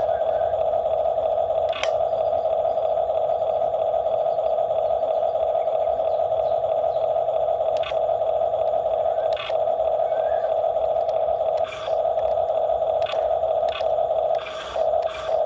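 Excavator running with a steady hum, broken by a few short knocks and clanks, with a cluster near the end.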